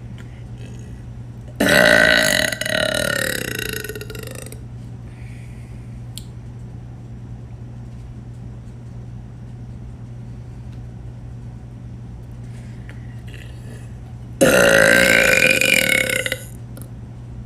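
A person burping loudly twice. Each is a long, drawn-out belch of two to three seconds, and the second comes about thirteen seconds after the first. A steady low hum runs underneath.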